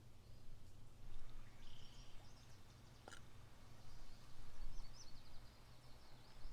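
Small birds singing in short, high, chirping phrases over a steady low rumble, with one sharp click about three seconds in.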